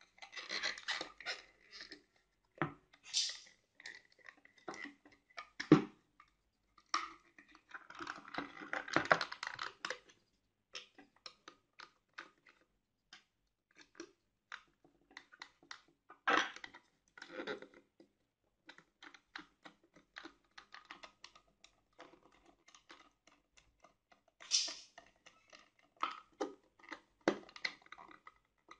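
Hands handling and fitting white plastic socket fittings on a wooden board: irregular plastic clicks, taps and scraping rustles, with a few sharper knocks, the loudest about 6 seconds in and again around 16 seconds.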